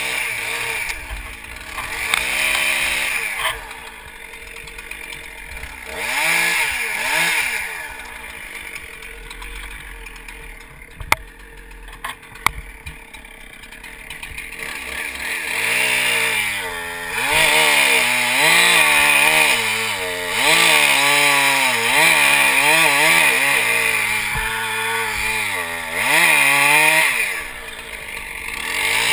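Two-stroke chainsaw blipped up twice, then idling with two sharp clicks. From about halfway it runs at high revs through a cut, its pitch wavering under load and dipping briefly near the end before it picks up again.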